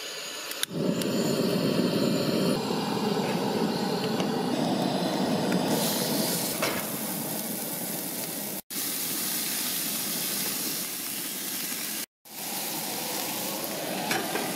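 Raw ground meat sizzling as it goes into a hot pan on a two-burner camp stove. The sizzle starts suddenly about a second in, is loudest for the first few seconds, then settles to a steady frying hiss that cuts out briefly twice.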